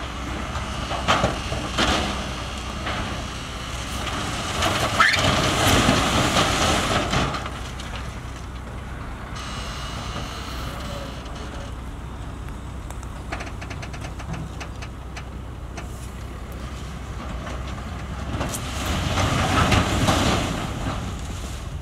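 Heavy diesel earth-moving machinery running steadily, with rock scraping and tumbling in two long loud swells, one about four seconds in and one near the end, and a couple of sharp knocks in the first two seconds.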